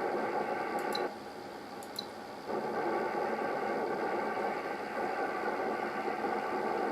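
Steady hiss from a ham radio receiver's speaker: noise that appears with an Expert 1.5K-FA linear amplifier in operate mode. A click comes just before the noise drops about a second in, and a second click comes at about two seconds; the noise returns at full level about half a second after the second click.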